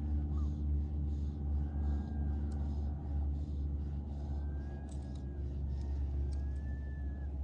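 A steady low rumble, with a soft swish repeating about twice a second through the first half, the sound of fly line being stripped in by hand during the retrieve.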